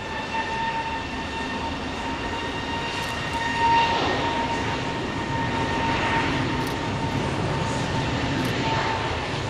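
Airbus A320neo's CFM LEAP-1A turbofans running at high thrust as the airliner rolls down a wet runway on its takeoff run. A steady high whine sits over a broad rush of jet and spray noise, swelling briefly about four seconds in.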